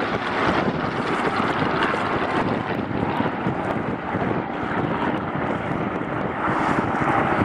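A formation of Supermarine Spitfires flying past at a distance, their piston engines making a steady drone, with wind buffeting the microphone.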